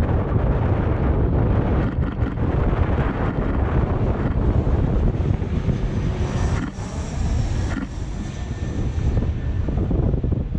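Jet airliner's engines rumbling as it flies past on approach, with wind buffeting the microphone. A thin high engine whine comes in about six seconds in and fades near nine seconds.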